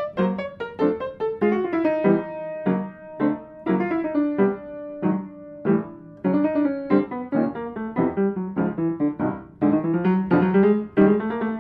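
Solo piano music: struck notes and chords that each die away, several notes a second, with a melody moving over lower chords.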